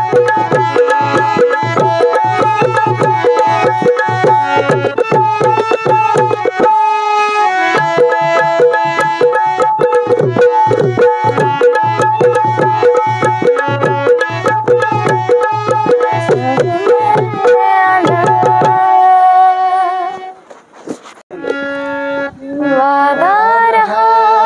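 Dholki drum playing a fast, steady rhythm with deep bass strokes, under sustained melodic accompaniment in an instrumental interlude of a Hindi film song. The drumming stops about three-quarters of the way through, a held note carries on briefly, and a woman's voice comes back in singing near the end.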